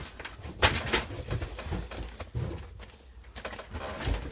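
Handling of a cardboard parts box and its packaging: scattered rustles and knocks, the loudest about half a second in.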